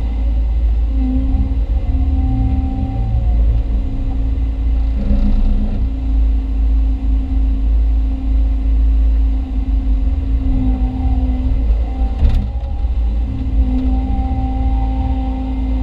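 Hyundai Robex 220-9A LC excavator's diesel engine running steadily under hydraulic load, heard from inside the cab, with a whining tone that comes and goes as it works. A single sharp knock about twelve seconds in.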